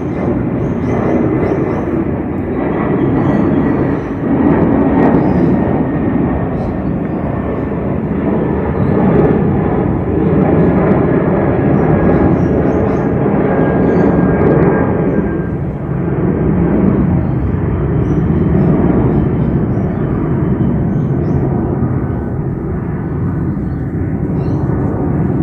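Airliner engines during a takeoff climb overhead: a loud, steady rumble with a faint whine that falls slowly in pitch.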